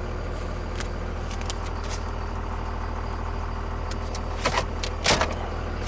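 Dodge Ram 2500's turbo-diesel engine idling steadily, heard from inside the cab. Near the end come two short plastic knocks as a dashboard compartment is handled.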